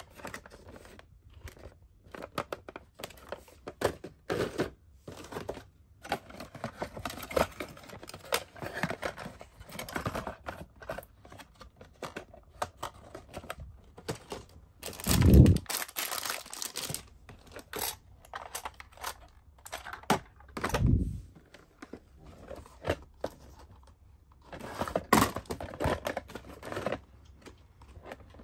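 Cardboard toy boxes and clear plastic packaging being handled and shuffled in plastic storage bins: irregular rustling and crinkling with light knocks, and louder knocks about fifteen and twenty-one seconds in as boxes are set down.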